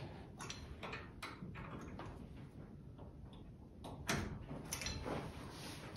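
Faint metallic clicks and knocks as pins are fitted into the snowplow mounting frame on the front of the UTV, with a sharper knock about four seconds in.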